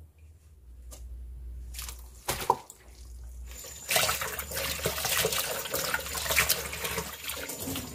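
Tap water running into a sink basin while hands swish and rinse trimmed butterbur leaves, splashing. The water comes in loudly a little before halfway; before that there is only quieter handling and one sharp knock.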